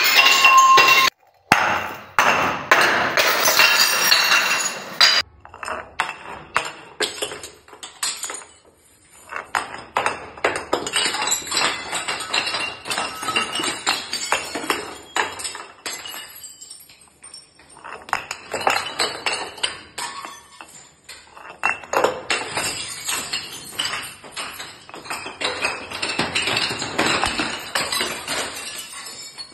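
Glass bottles and jars filled with water beads rolling down stone stairs, clinking, knocking and smashing against the steps, with many small clicks from scattering beads and glass pieces. The impacts come in repeated clusters, with short lulls between bottles.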